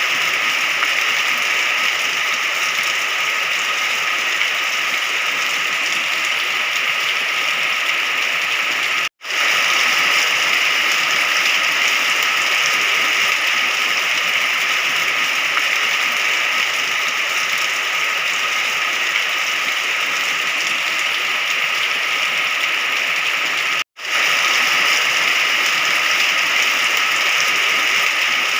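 Steady, dense rain hiss, even throughout, cut by two momentary dropouts to silence: one about nine seconds in and one near the end.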